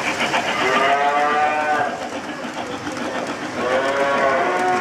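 Recorded cattle mooing, twice, from the sound system of an O-gauge model train's stock car or the layout, over the steady rolling rumble of the model freight train. The first moo comes about a second in and the second near the end, each a drawn-out call that rises and falls in pitch.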